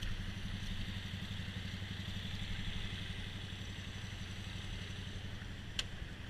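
Boat motor idling steadily with an even low pulse, and a single sharp click near the end.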